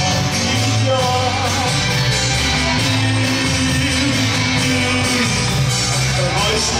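Live band music: a male singer over a drum kit and guitars, with a steady beat.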